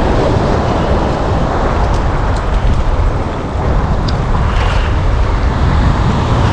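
Wind buffeting the microphone over the steady wash of small surf waves, with a few faint clicks.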